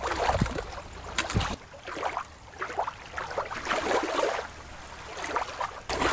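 Shallow river water splashing and sloshing as a plastic toy shark is swished through it, cut off about a second and a half in by a stretch of swelling underwater water noise, with splashing coming back near the end.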